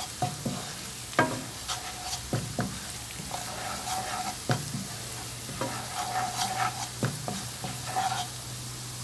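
A spoon stirring and scraping garlic and ground spices frying in butter and oil in a pan, with a light sizzle, irregular knocks of the spoon against the pan, and scraping strokes about a second long.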